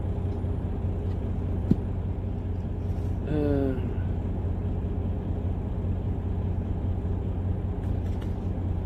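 Steady low drone of an idling truck engine, heard from inside the cab. A single short click about two seconds in, and a brief hum from a voice a little over three seconds in.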